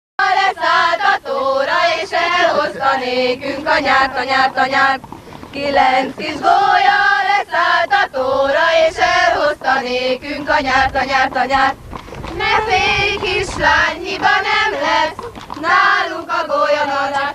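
A group of young women singing a song together in unison, in phrases with short breaths between them.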